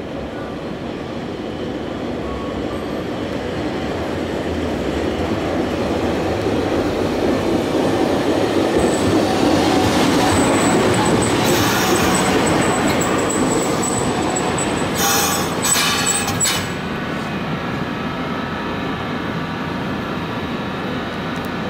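Fukui Railway Mo 800 series electric tram approaching along the street track, growing louder as it passes close and pulls up at the platform. A thin, steady high whine runs through its loudest stretch. A few short bursts of noise come about three-quarters of the way through, and then the sound drops to a lower steady level as the tram stands.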